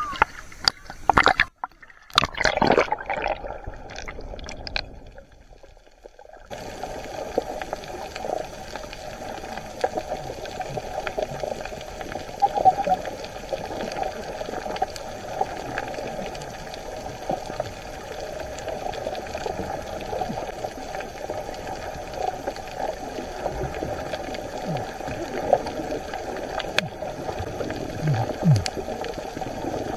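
Sea water sloshing and gurgling around a camera held at the surface, with sharp splashes in the first couple of seconds, then a steady muffled wash of water.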